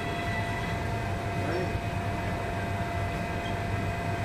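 Steady hum of a Korean-built MTR East Rail line train (Hyundai Rotem R-train) standing at a platform with its doors open, its on-board equipment running, with a thin steady tone that stops near the end.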